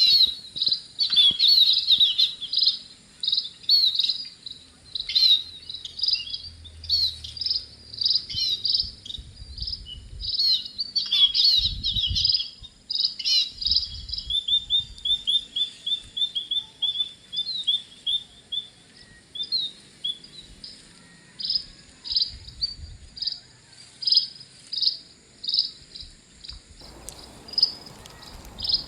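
Several songbirds chirping and singing in quick, overlapping bursts of high notes, with a fast run of repeated chirps in the middle. Underneath them a steady, high insect trill keeps going.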